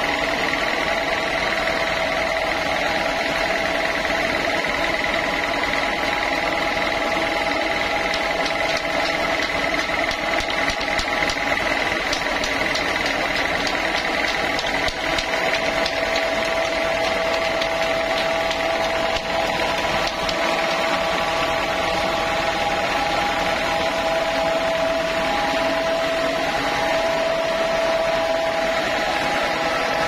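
Large log band sawmill running steadily with a constant whine as its carriage carries a big wood slab through the blade.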